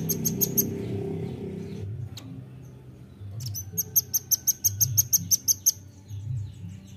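Velvet-fronted nuthatch singing a rapid, high-pitched series of sharp, evenly repeated notes: a short run at the start and a longer run of about a dozen notes beginning about three and a half seconds in. Low-pitched background sound lies beneath, loudest in the first two seconds.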